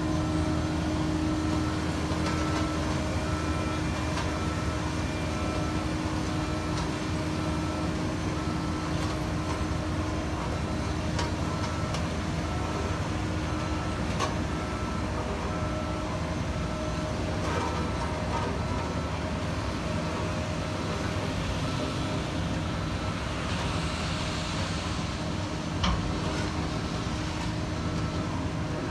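Heavy diesel construction machinery running steadily at a street paving site, with a faint repeating beep through the first two thirds and a few short knocks.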